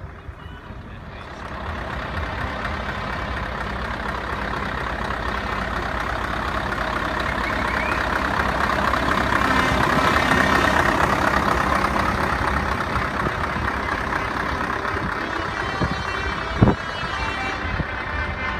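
A diesel truck engine running steadily, growing louder toward the middle and easing off again, with a single short knock near the end.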